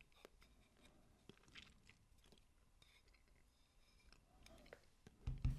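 Near silence: room tone with a few faint, scattered clicks and a short low thump near the end.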